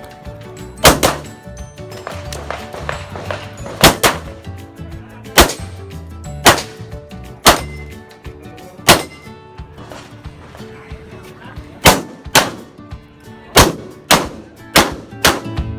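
Handgun shots fired during a practical shooting stage, about a dozen sharp cracks at an uneven pace, some in quick pairs and others a few seconds apart.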